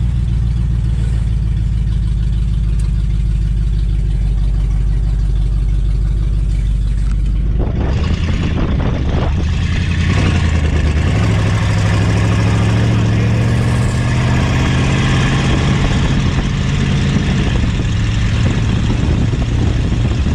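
AMC 290 V8 of a 1969 AMC Rebel running as the car drives, at first a low steady engine drone heard inside the cabin. About eight seconds in the sound changes to the car heard from outside, with heavy wind noise on the microphone, and the engine note rises as it speeds up.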